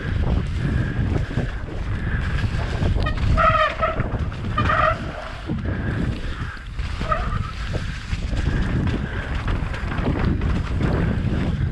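Wind buffeting a helmet-mounted action camera's microphone while a mountain bike descends fast, its tyres and frame rumbling and rattling over wet dirt and rock. A couple of short high squeals cut through about three to five seconds in.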